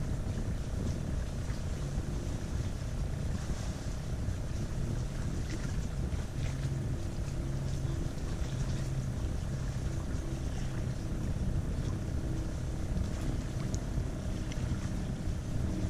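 Steady wind noise on the microphone over a canoe on choppy water, with a low steady hum underneath.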